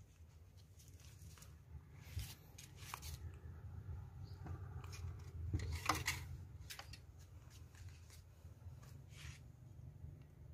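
Scattered small clicks and rustles of hands handling the wiring and plastic cabinet of an old CRT television, with the sharpest click about six seconds in.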